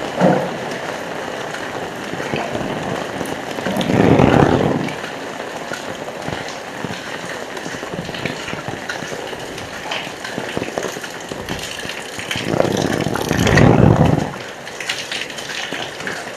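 Heavy rain pouring in a steady hiss, with two louder rushing swells about four seconds in and again near the end.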